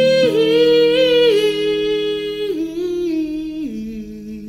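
Music from an acoustic pop song: a wordless vocal line held on long notes over sustained acoustic guitar chord tones. The melody steps down twice and fades toward the end.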